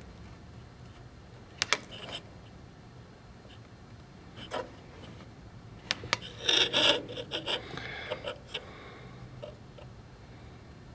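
Small workbench handling sounds while freeing solder from a circuit-board hole: a few sharp clicks near the start, then scraping and rubbing for a second or so in the middle, with scattered light ticks. A faint steady hum runs underneath.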